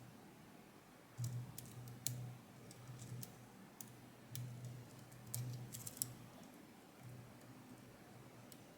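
Faint, scattered small metal clicks from a lock pick and tension wrench working the pins of a Yanai R high pin count lock as tension is eased and the pins are picked again, with a few low dull handling bumps.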